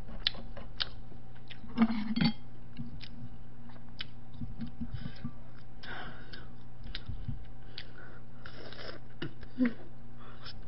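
Eating at a table: scattered light clicks of chopsticks against dishes and soft chewing, with a couple of short louder sounds about two seconds in and near the end, over a steady electrical hum.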